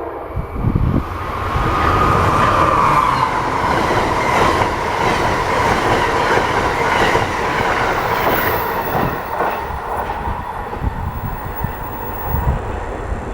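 Amtrak passenger train hauled by an ACS-64 electric locomotive passing at speed: wheels clattering over the rail joints, with a steady high-pitched whine. The noise builds about a second and a half in, then eases off slightly near the end.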